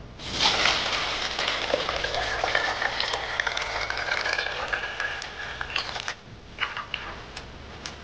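Green leaf juice poured in a thick stream onto raw rice in a pot, a splashing, gurgling hiss that cuts off suddenly about six seconds in. A few light clinks follow near the end.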